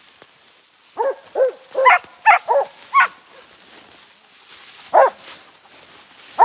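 Hunting dogs barking at a bear treed above them: a quick run of about six barks starting about a second in, then a pause and one more bark near the end.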